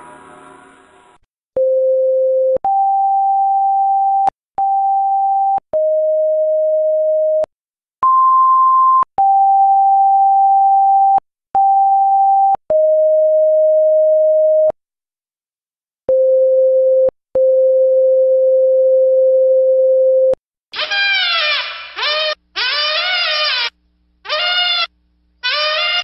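Cartoon library sound effects: a gong ringing out, then a run of pure electronic beep tones stepping between a few pitches, each held a second or two, with a click at every start and stop. From about 21 s comes a string of about five cries whose pitch falls and wavers.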